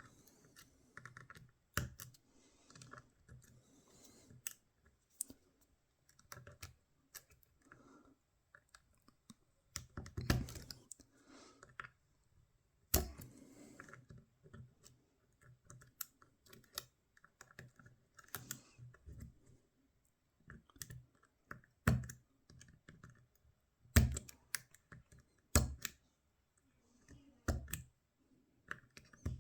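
Small metal tools working a cheap tubular disc-brake lock: irregular light clicks and scrapes of pins and tension wrench, with a handful of sharper, louder clicks spread through.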